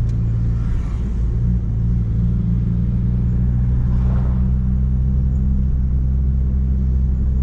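Chevrolet Corsa 1.4 four-cylinder engine breathing through an aftermarket sport exhaust (Luzian intermediate and rear mufflers, silencer insert out), running at a steady engine speed with a deep, even drone.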